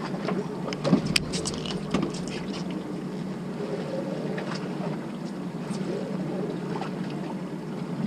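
Steady low drone of a fishing boat's engine under wind and water noise. A few sharp clicks and knocks come about one and two seconds in.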